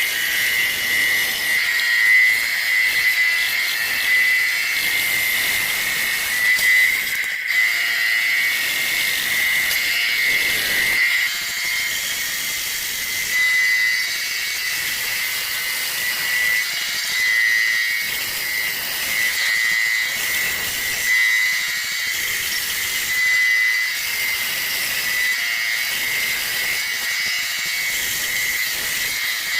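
High-speed power tool cutting wood, running with a steady high-pitched whine and a hiss.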